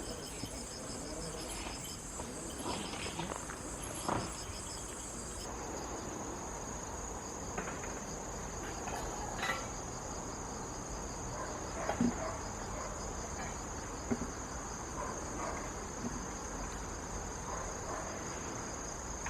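Crickets trilling steadily in a high, continuous chorus; one of the higher voices drops out about five seconds in. A few faint knocks are heard, the clearest about twelve seconds in.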